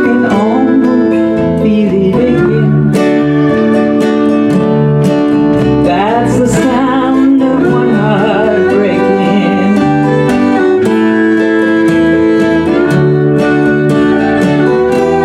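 Live acoustic band music: strummed acoustic guitar and bass keeping a steady pulse under a violin, whose sliding, wavering line stands out about halfway through.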